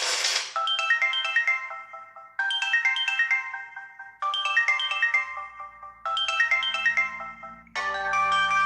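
Samsung Galaxy Ace built-in ringtone playing. A short phrase of quick, high, bright notes is repeated four times, about every two seconds. Near the end a fuller phrase with held notes and a low bass comes in.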